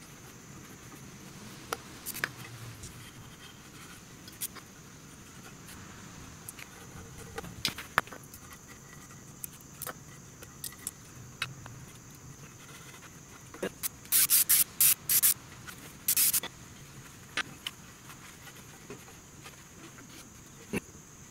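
Razor-blade scraper working stuck old gasket material off the motorcycle's clutch cover: scattered light scrapes and clicks, with a quick run of about six louder, harsh scrapes about two-thirds of the way through and one more just after.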